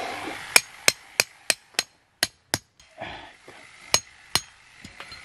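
A tent peg being hammered into the ground: seven sharp strikes about three a second, a pause, then two more.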